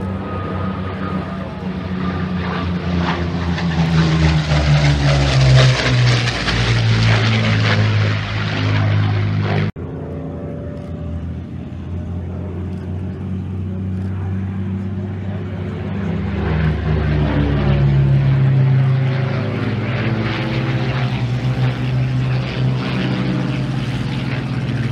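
Messerschmitt Bf 109 G-12 two-seater with a Rolls-Royce Merlin V12 engine flying past overhead, its engine note swelling and dropping in pitch as it passes. After an abrupt cut about ten seconds in, a second pass swells to a peak and eases off.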